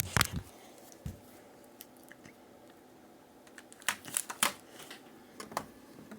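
Scattered clicks and rustling handling noises: a sharp click at the start, a few more in the first second, then a small cluster of clicks about four seconds in and another near the end.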